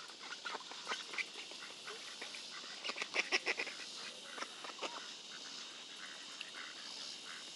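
Waterfowl calling: faint short calls scattered throughout, with a quick run of about half a dozen louder calls around three seconds in.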